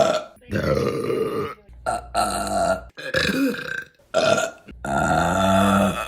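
A rapid string of women's burps, about five, each cut off abruptly before the next. The last one is long and held at a steady pitch.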